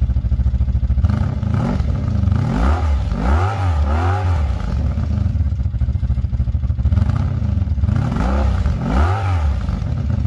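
Engine running and being revved in short throttle blips, its pitch sweeping up and back down several times, in two clusters: about two to four seconds in and again about eight to nine seconds in.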